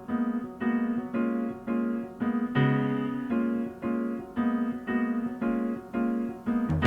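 Electric piano playing a run of repeated chords at a steady pulse, about two to three a second, in mellow easy-listening background music.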